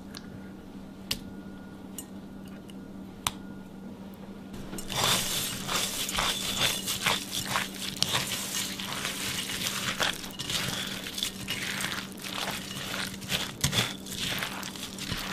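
A thick, creamy mixture of rice, stuffing, sour cream and mayonnaise being stirred with a spatula in a glass bowl: wet squishing and scraping against the glass, starting about five seconds in after a few light clicks.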